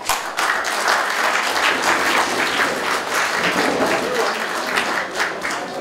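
A small audience applauding: dense clapping that starts abruptly, thinning to more separate claps near the end.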